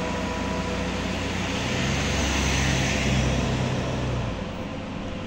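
Motor traffic on a steep climb: an SUV's engine and tyres swell as it drives up past close by, then fade about four seconds in. Underneath is the steady drone of a truck labouring uphill farther off.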